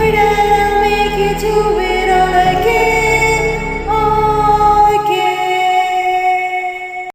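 Music with female singing, long held notes that change pitch every second or so; the low bass drops out about five seconds in and the music cuts off suddenly at the end.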